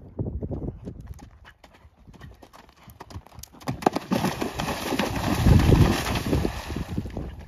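A horse's hoofbeats at a canter, then from about halfway through its hooves splashing through water as it crosses a water jump, loudest toward the end.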